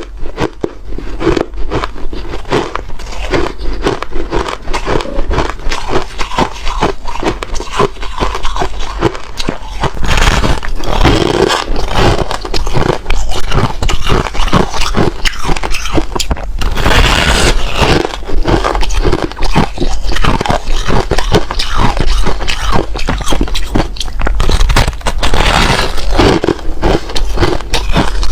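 Ice being bitten and chewed close to the microphone: a loud, dense run of crunching and crackling that grows louder from about ten seconds in.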